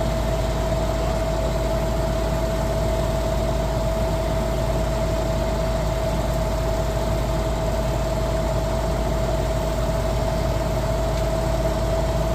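A concrete pump truck's diesel engine idling steadily, a low rumble with a steady whine over it.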